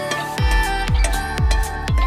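Background music with a steady beat: a deep kick drum about twice a second under held synth-like notes.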